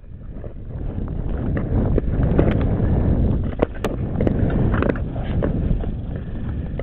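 Nordic long-distance skates running and scraping over clear lake ice in strides, a dense low rumble that builds over the first second, with several sharp clicks against the ice.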